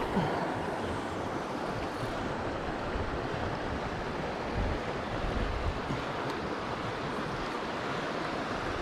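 Creek water rushing steadily over a rough, rocky stretch, with low buffets of wind on the microphone now and then, strongest around the middle.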